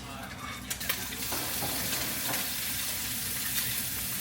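Bacon frying, a steady sizzle that swells about a second in, with a few light utensil clicks before it.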